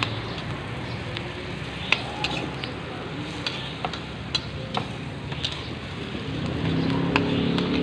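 Chopped aromatics sizzling in hot oil in a wok as a metal spatula stirs them, with sharp scrapes and taps of the spatula on the pan every second or so. A low droning hum comes up near the end.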